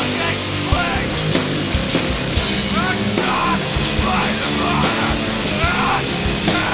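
Sludge metal / hardcore song played by a guitar, bass and drums band: loud, dense and steady, with regular drum hits under the guitar and bass.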